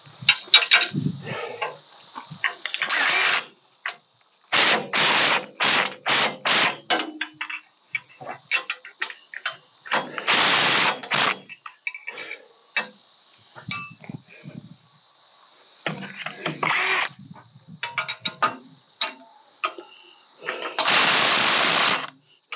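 Cordless power tool run in short bursts of half a second to a second, several in quick succession, backing out the bolts that hold an old hay grapple to a tractor loader bucket. Scattered clicks and knocks of tools on metal come between the bursts, over steady insect chirring.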